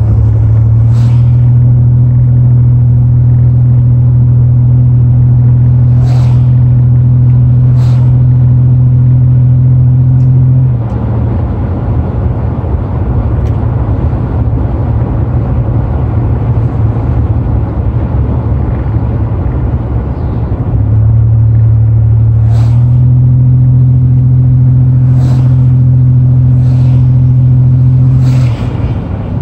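A car's engine and tyres heard while driving at a steady speed: a loud, low, steady drone over road noise. The drone drops away about a third of the way in and comes back about two-thirds through, with a few faint light knocks.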